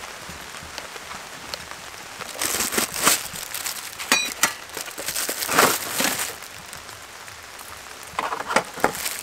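Steady rain pattering, with a dalgona kit's packaging crinkling and rustling as it is handled, in bursts from about two and a half seconds in to six seconds and again near the end.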